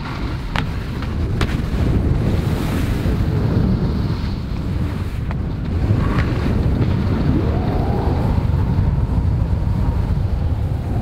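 Wind buffeting the microphone while moving at speed on a ski run: a loud, steady low rumble, with about four sharp knocks scattered through the first half.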